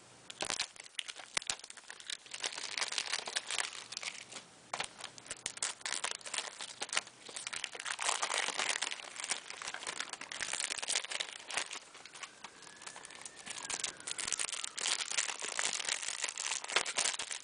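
Plastic shrink-wrap on a Blu-ray case crinkling and tearing as it is pulled off by hand, a dense run of irregular crackles.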